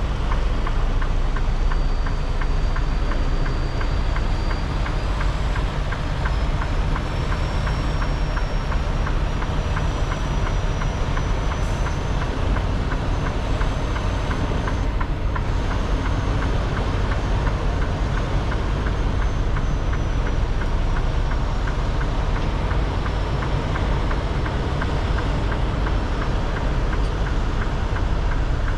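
Semi truck cab at highway speed: steady diesel engine drone and road noise with no break, and a faint high whistle that slowly climbs in pitch.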